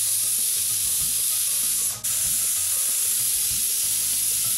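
Prestige pressure cooker whistling: a loud hiss of steam escaping under its weighted vent, twice, with a short break about two seconds in. The two whistles are the cue that the lentils inside are done.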